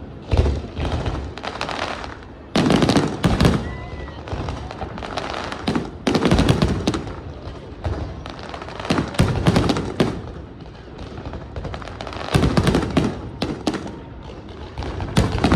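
Fireworks display: rapid volleys of bangs and crackling that swell into loud clusters every two to three seconds.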